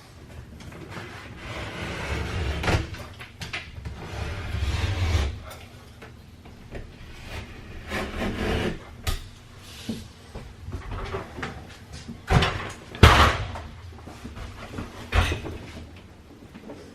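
A blade scraping and rubbing as it cuts caulking loose along the edge of a wall-mounted panel, with several sharp knocks and clacks, the loudest about thirteen seconds in.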